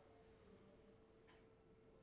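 Near silence: room tone with a faint steady hum and one faint tick about halfway through.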